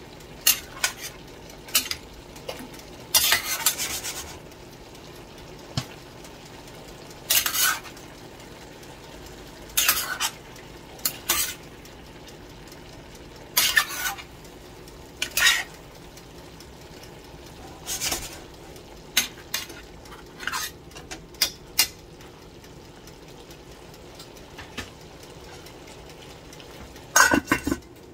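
Vegetables stirred and tossed in a stainless steel pot with tongs: irregular scraping and clinking strokes every second or two, with a faint steady sizzle underneath. Near the end, a metal pot lid clanks loudly onto the pot.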